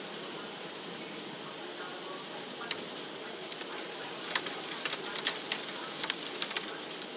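Heavy rain falling steadily, with scattered sharp taps of drops striking a hard surface close by, most of them in the second half.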